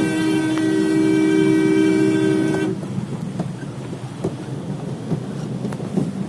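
A vehicle horn held for about two and a half seconds on a steady two-note chord, then cut off. After it, the steady rumble and hiss of a car driving through floodwater, with spray spattering against the car's body and windows.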